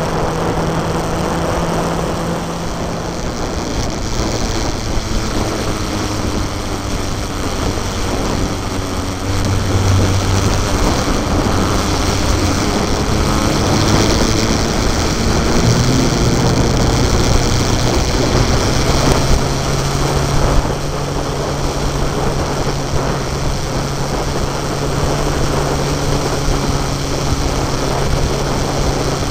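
Vehicle engine running steadily at road speed under a constant rush of wind and road noise. The engine note shifts in pitch a few times.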